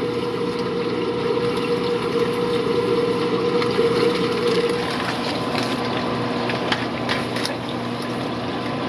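Steady running water and pump hum from a fish room's aquarium filtration and aeration. A steady hum drops away about five seconds in, and a few light taps follow.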